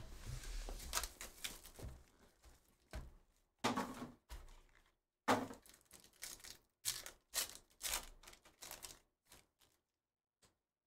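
A foil trading-card pack being torn open and crinkled by hand: an irregular string of sharp crackling rustles and clicks, with cards handled among them.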